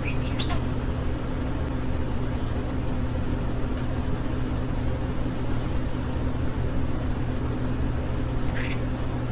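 Steady low background hum. Two brief high chirps from a budgie cut through it, one about half a second in and one near the end.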